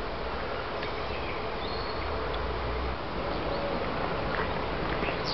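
Steady outdoor background noise with a low rumble, and a few faint, short high chirps from birds.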